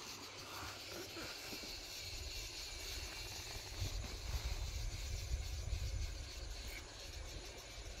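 Wind buffeting the microphone: an uneven low rumble that gusts loudest in the middle, over a faint steady hiss.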